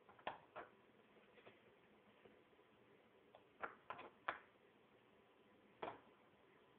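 About seven short, light clicks at irregular intervals, four of them in a quick cluster a little past halfway, over near silence.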